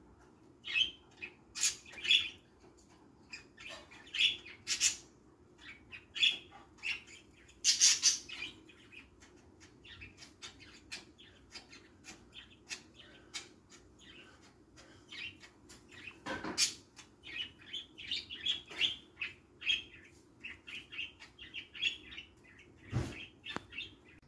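Pet budgerigars (parakeets) chirping: a busy, irregular stream of short, high chirps.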